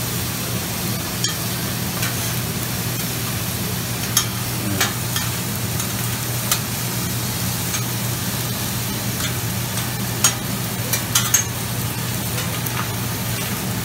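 Meat, shrimp and vegetables sizzling on a flat-top Mongolian barbecue griddle as the cook turns and chops them with metal spatulas. The blades click and scrape against the steel now and then, several times in quick succession near the end, over a steady low hum.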